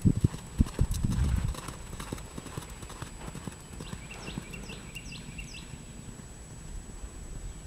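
Shetland pony's hoofbeats on sand arena footing as it trots under a rider, loudest in the first second and a half and then fainter as it moves away.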